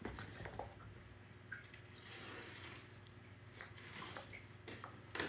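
Faint scattered clicks and soft rustling from a Scottish terrier puppy playing around a shoe, over a low steady hum.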